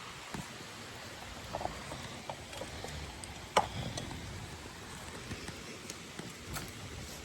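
Steady hiss of light rain with scattered small taps, and one sharper click about three and a half seconds in.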